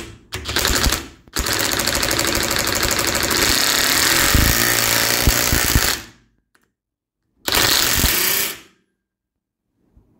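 Impact wrench hammering a nut tight onto a bolt held in an adjustable wrench's jaws, through a socket. There are a couple of short blips, then a long hammering run of about four and a half seconds, a pause, and a second burst of about a second.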